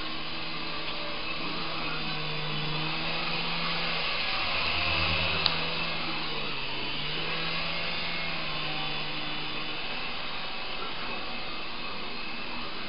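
Small Syma S107G-type coaxial indoor RC helicopter in flight, its electric rotor motors whirring steadily; the pitch dips briefly about halfway through as the throttle changes, and it is loudest around five seconds in. A single sharp click about five and a half seconds in.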